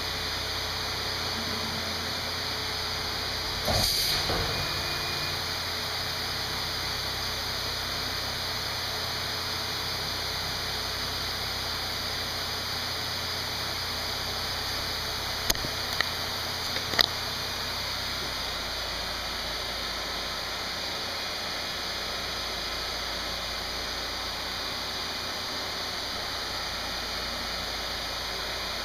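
A granite CNC machine's steady hiss, with a sudden blast of air about four seconds in, dying away over a second, as the spindle works a tool holder at the automatic tool rack. A few sharp clicks follow later, after which a low hum drops out.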